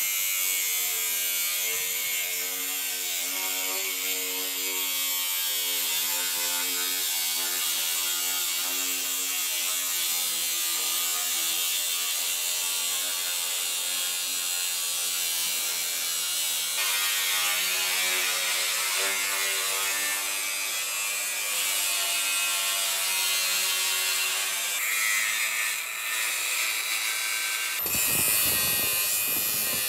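Cordless Milwaukee angle grinder with a thin cut-off disc running and cutting into the rusted steel of a 1965 VW Beetle's front axle beam: a steady motor whine over the high hiss of the disc on metal. The sound shifts abruptly near the end.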